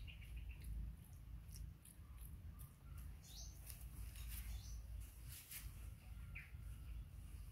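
Faint, scattered bird chirps and clicks over a low steady rumble.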